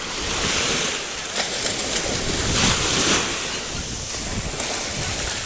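Sea waves breaking and washing on the shore, the surf swelling and easing, with wind rumbling on the microphone.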